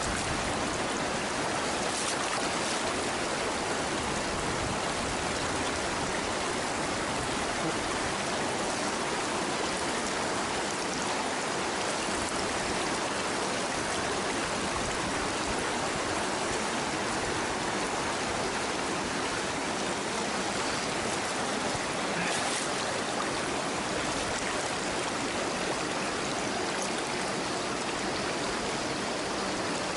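Shallow mountain stream running fast over rocks and boulders: a steady rush of water.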